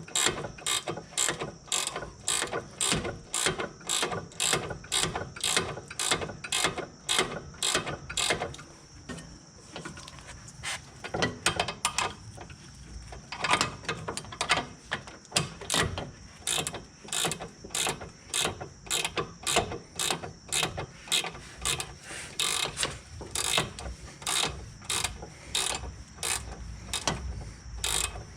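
Mountain ratcheting box wrench clicking as it tightens the top nut of a rear sway bar link, about two ratchet strokes a second, with a slower, sparser stretch near the middle.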